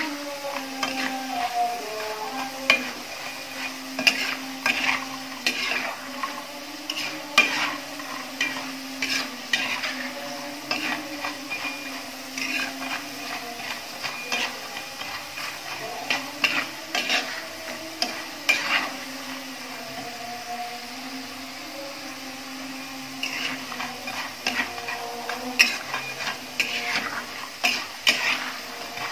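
A metal spatula scrapes and knocks irregularly against a wok as diced potatoes are stirred while they fry in hot oil, with the oil sizzling underneath.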